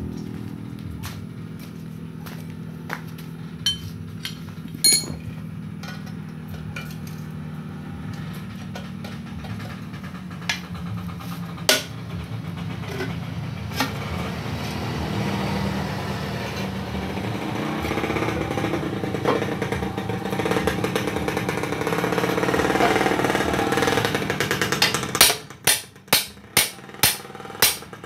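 Hammer blows on a steel chisel driven into a chrome motorcycle muffler, knocking out its inner baffles to hollow it out: about six sharp metallic strikes in quick succession near the end, roughly two a second. Before them, scattered light metal clinks and a steady mechanical drone that grows louder through the middle.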